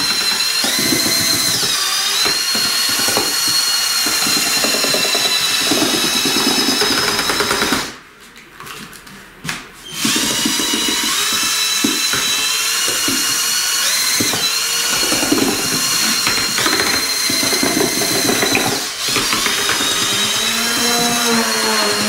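Cordless drill-driver running at its second speed, spinning a homemade mixer paddle made from an old washing-machine heating element through water-based acrylic paint: a steady high motor whine. About eight seconds in it stops for roughly two seconds, then starts again.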